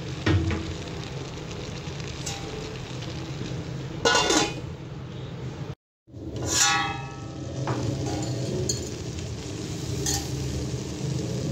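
Potatoes and onions sizzling and simmering in a pan on low flame. A metal pan lid clatters about four seconds in, then, after a brief dropout, clanks and rings briefly.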